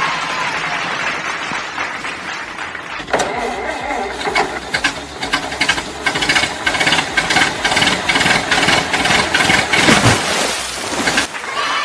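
A steady hiss, then from about three seconds in an engine starting and running roughly with fast, clattering knocks; it cuts off suddenly near the end.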